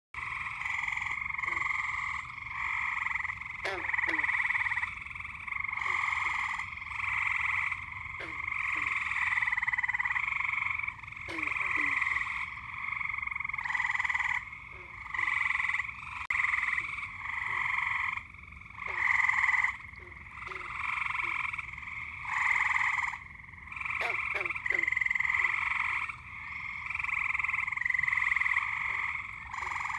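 A chorus of frogs calling: many overlapping trills, each about a second long, following one another with hardly a pause. A few short, lower calls that fall in pitch are mixed in.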